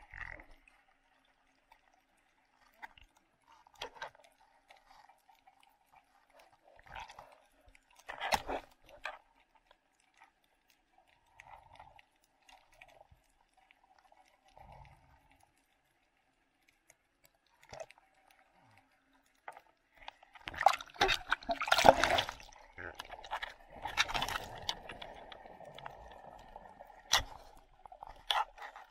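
Muffled underwater sound from a camera below the surface: scattered clicks and short gurgles with long quiet gaps, then a louder stretch of bubbling and rushing water about two-thirds of the way through.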